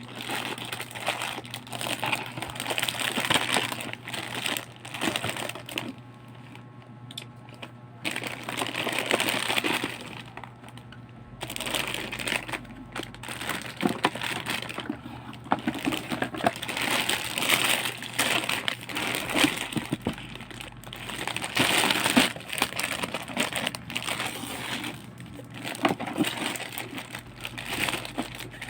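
Packaging being unwrapped and handled: irregular crinkling and rustling in bursts, with scattered clicks and small knocks, and a quieter spell a quarter of the way in.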